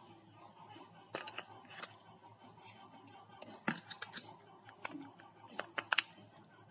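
Irregular sharp clicks and taps, about a dozen, from small hard objects being handled on a work surface during a phone display repair, with a quick cluster of clicks near the end.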